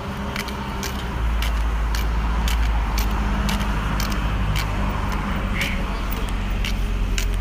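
White cane tip tapping on pavement in a steady walking rhythm, sharp clicks about twice a second, over a low rumble of road traffic that grows louder about a second in.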